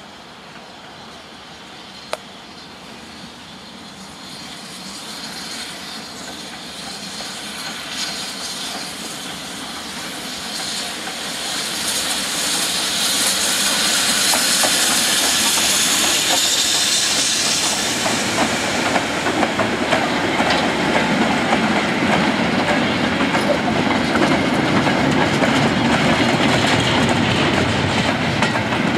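BR Britannia class 4-6-2 steam locomotive No. 70013 passing with a goods train. It grows louder over the first half as it approaches, with a hiss of steam loudest as the engine goes by. Then the goods vans roll past with a steady clickety-clack of wheels on the rails.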